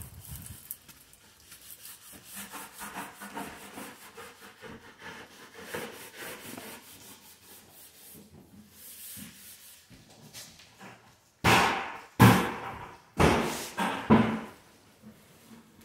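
Footsteps and rubbing handling noise in a bare, empty house, then four loud thumps in a row near the end, about a second apart.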